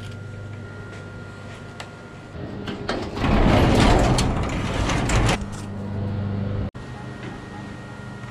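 Motorcycle engine idling steadily, with a garage door rattling and rolling open over it for about three seconds in the middle.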